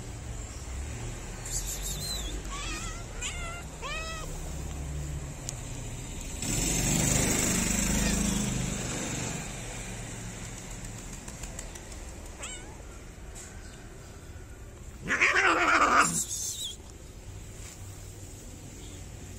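Stray cats meowing: a run of short meows in the first few seconds, then one long, loud meow about fifteen seconds in. A swell of rushing noise comes and goes about six to nine seconds in.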